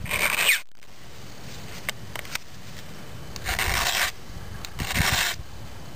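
Flat file rasping over the depth gauges (rakers) of a chainsaw chain in three short strokes, one at the start and two close together later on, lowering the small points in front of the cutters so the teeth can bite.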